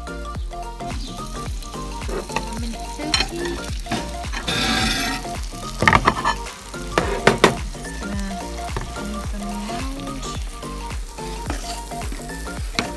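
Beef burger patties sizzling in a hot cast-iron sizzler pan, with a few sharp knocks about halfway through. Background music plays underneath.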